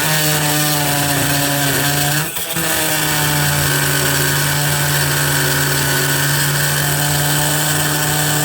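DeWalt DCS356 brushless oscillating multi-tool running with a bimetal blade, cutting through a stainless steel screw shaft with a steady, loud buzz. The tool briefly drops off about two and a half seconds in, then carries on cutting.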